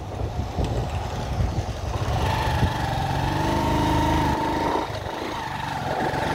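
Motorcycle engine running as it rides along, with a low rumble of road noise. About two seconds in, a higher engine note comes in and climbs a little as the bike picks up speed. It drops away briefly near five seconds and returns near the end.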